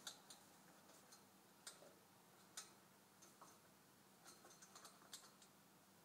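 Faint, irregular light clicks and taps from a parrot shuffling about on an apple in its wire cage, with a quick run of them near the end.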